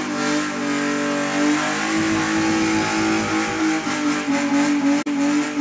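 Car engine held at high revs in a burnout, the tyres spinning; one steady, slightly wavering engine note over a hiss of noise, dipping briefly about five seconds in.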